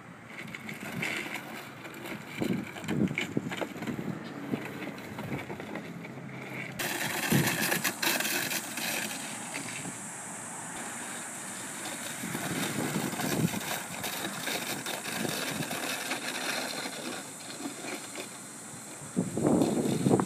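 A husky tugging and dragging a black corrugated plastic drainage pipe over gravel and dirt, with scraping and rattling that comes in irregular bursts and is loudest near the end.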